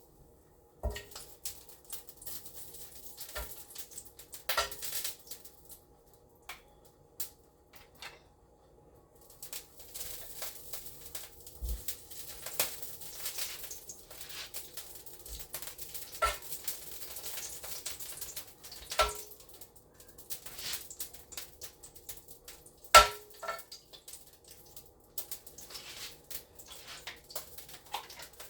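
Pots, dishes and utensils being handled: scattered clinks and knocks, some with a short metallic ring, the loudest about 23 seconds in. A faint hiss runs through the middle stretch.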